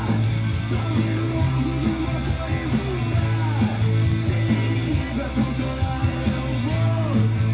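Rock song playing, with guitar and singing over a steady bass line.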